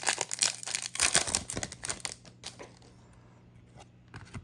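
A foil hockey card pack wrapper being torn open and crinkled: a dense run of crackling for about two seconds, then only a few faint ticks.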